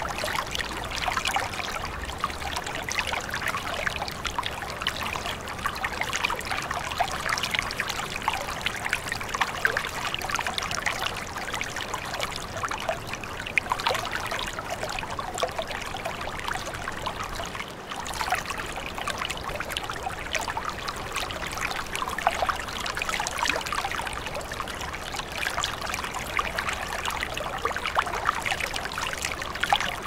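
Water of a small rocky waterfall and stream splashing and trickling over boulders in a steady, unbroken rush.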